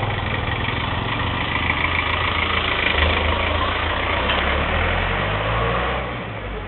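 A motor vehicle's engine running close by with a steady low hum, dying away about six seconds in.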